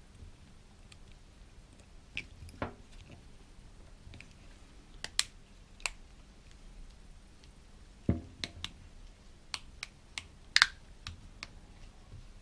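Scattered small plastic clicks and taps as the parts of a GoPro Hero 4 Silver camera are handled and pressed together during reassembly, the loudest a sharp click about two-thirds of the way through.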